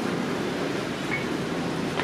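Steady rumbling background noise, with a brief faint high tone about a second in.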